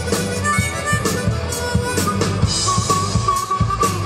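Live rock band playing, with a harmonica lead over electric guitars, bass and drums. In the second half the harmonica holds a long, slightly wavering high note.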